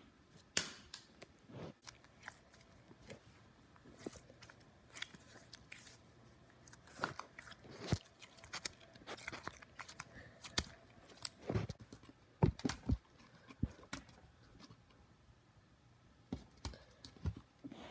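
Close handling noise: irregular soft clicks, taps and crackles, scattered unevenly with a few louder knocks, over a faint low hum.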